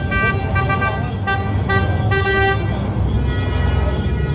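A car horn sounding in a quick series of short honks, about five in the first two and a half seconds, over the steady low rumble of an idling car engine.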